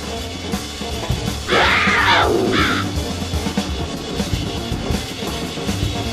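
Fast drum kit playing with the band, dense bass drum and snare strokes. About one and a half seconds in, a loud inserted cartoon sound effect cuts across it with a falling pitch, followed by a shorter second burst.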